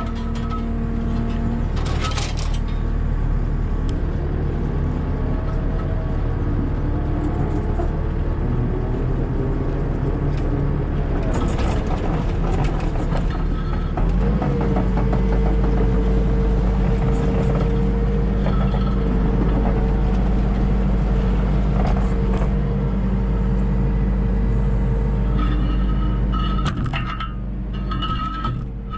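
Skid steer engine running steadily, then revving up about halfway through and holding at higher speed with a steady whine, dropping back near the end.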